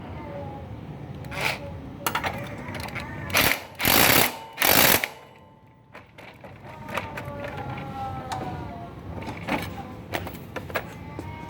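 Makita cordless impact driver run in two short, loud bursts of hammering about four and five seconds in, with scattered clicks and knocks of the tool being handled around them.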